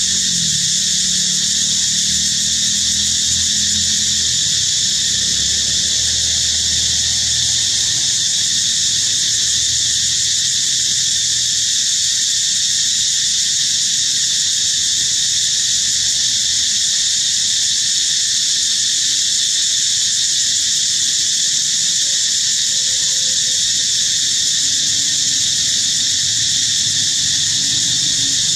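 Steady, high-pitched drone of a forest insect chorus, unbroken throughout, with a low rumble underneath that fades out about halfway through.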